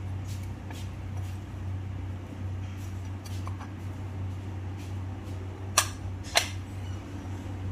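Small metal grinder parts being handled during a blade change: faint scattered ticks, then two sharp clicks a little more than half a second apart near the end, over a steady low background hum.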